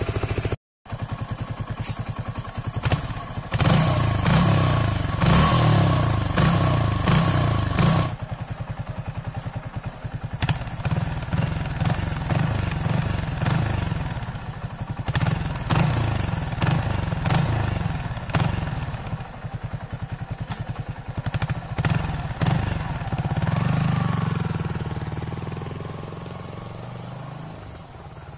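Motorcycle engine running with a pulsing exhaust beat. It is revved harder from about three to eight seconds in, swells again later, then fades as the bike moves away near the end.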